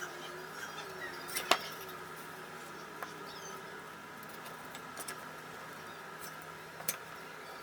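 A few short, sharp clicks and light knocks, the loudest about one and a half seconds in and others near three, five and seven seconds, over a faint steady hum.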